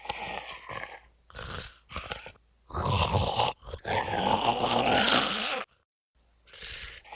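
Zombie eating sound effect: a rough, growling monster voice in several short bursts, then one long, loud stretch of about two seconds near the middle.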